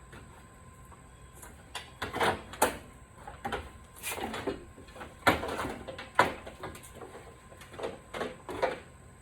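Irregular knocks, clicks and short scrapes of small hard parts being handled and moved about, a dozen or so at uneven intervals.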